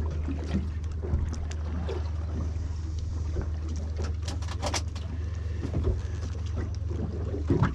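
Boat engine running at a steady low hum. A few sharp clicks come about four to five seconds in.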